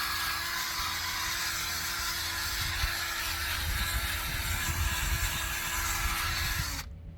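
A small power tool's motor runs with a steady whine over a scrubbing hiss, then dips in pitch and stops near the end.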